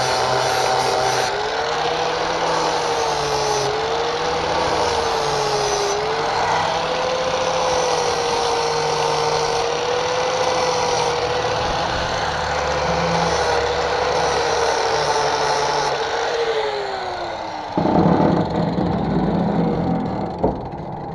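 Die grinder with a flap disc grinding the cutting edge of a steel lawn mower blade, its whine dipping and recovering as the disc bears on the metal. Near the end the grinder is let off and its pitch falls as it winds down, followed by a few seconds of rougher noise.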